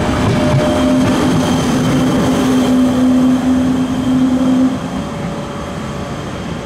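Intercity train pulling out of the station, its running noise carrying a steady low hum that stops about four and a half seconds in, after which the train noise goes on more quietly.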